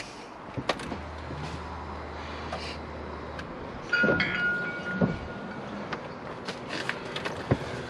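Ignition switched on in an R50 Mini Cooper: a low steady hum for a couple of seconds, then an electronic chime about four seconds in as the stereo is powered up, followed by a few light clicks of buttons being pressed.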